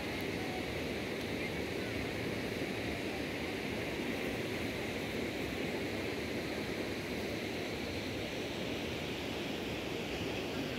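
Steady rushing of river water: an even hiss that holds level throughout.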